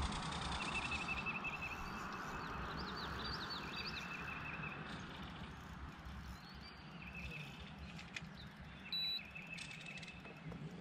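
Riverside ambience: a steady rushing background with songbirds singing short, repeated high trills several times. About nine seconds in, a brief high tone sounds.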